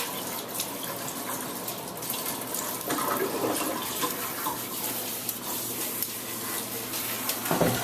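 Tap water running steadily into a sink or tub while a puppy is bathed, with a brief knock near the end.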